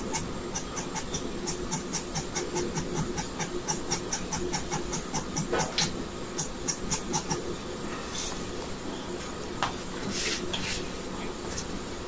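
Pen nib scratching quick short strokes on paper, about five a second, stopping about seven seconds in. Then the sheet is slid and turned on the desk, twice briefly rustling.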